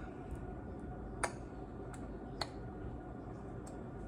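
A few light clicks and small squeezes from a plastic squeeze bottle of habanero hot sauce being handled and squeezed over food, with two sharper clicks about a second and two and a half seconds in, over a low steady room hum.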